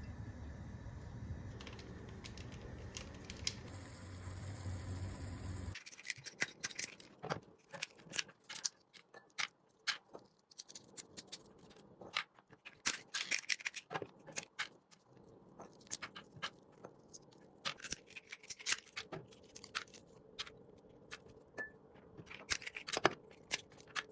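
Hands working in a kitchen while preparing dough: irregular small clicks, taps and light scrapes of utensils and bowl. A steady low hum cuts off about six seconds in.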